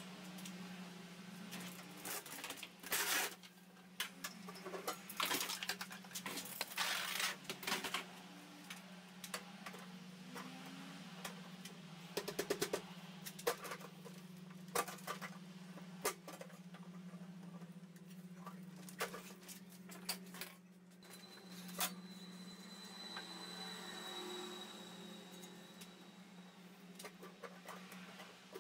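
Irregular clicks, knocks and rustling from hands fitting parts at the extractor's inlet, with a quick run of ticks about twelve seconds in, over a steady low hum.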